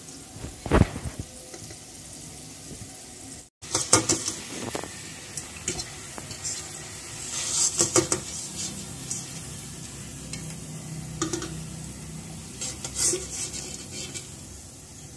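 Batter-coated okra frying in hot oil in an aluminium kadai, sizzling steadily, while a wire-mesh skimmer scrapes and clinks against the pan as the fried pieces are lifted out. The sound cuts out for a moment about three and a half seconds in.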